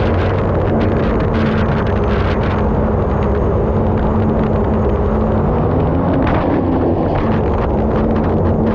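Turbine-powered unlimited hydroplane heard from onboard: the engine running hard with a steady low drone and held tones, under dense rushing noise of water and wind against the hull and microphone.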